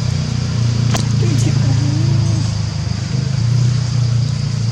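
A steady low motor hum with a slight pulse, like an engine running nearby. A sharp click comes about a second in, and a thin steady high whine runs behind it.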